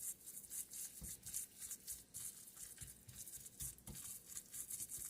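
Dense, crisp rustling and crackling from ingredients being handled by hand over a mixing bowl, with a few soft knocks.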